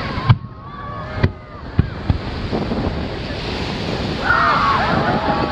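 Fireworks shells launching and bursting: a few sharp bangs, the loudest about a third of a second in and two more over the next second and a half, over a steady rushing background noise.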